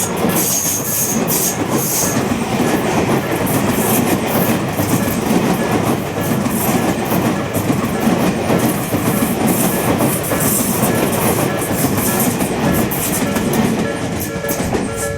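Tobu Railway train passing close by over a level crossing, its wheels clattering over the rail joints, with a few brief high wheel squeals near the start. The crossing's electronic warning bell keeps ringing under the train noise.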